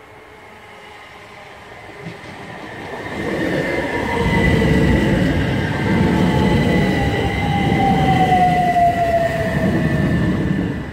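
A c2c Class 357 Electrostar electric multiple unit approaches and passes close by. The rumble of its wheels on the rails grows louder from about two seconds in, and a whine from the train slides down in pitch as it goes by.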